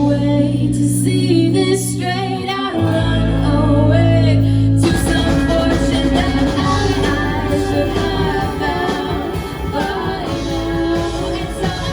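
A song: a singer's voice over a backing band with sustained bass notes, the band getting busier about five seconds in.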